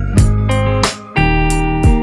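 Background music led by guitar over a steady bass, with a regular beat.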